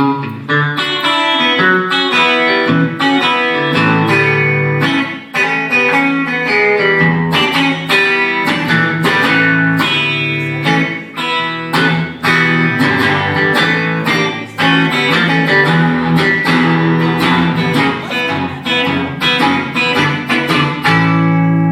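Live guitar playing an instrumental break in a pop song: a run of quick plucked notes over held low notes.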